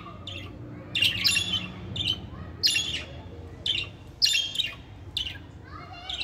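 Budgerigars chirping and chattering in quick, uneven bursts of short high calls, about two a second.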